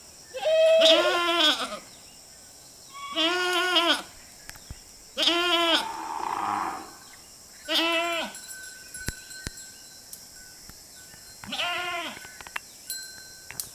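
Goats bleating: five separate bleats, each under a second long, about two seconds apart.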